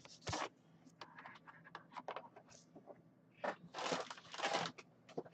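Wrapped packs of trading cards and their boxes being handled and ripped open: scattered crinkling and scraping, with two louder rustling bursts about three and a half seconds in.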